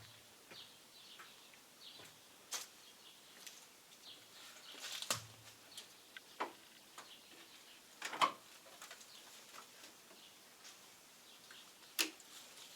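A handful of short sharp clicks and knocks, spaced a few seconds apart, with faint high chirps between them.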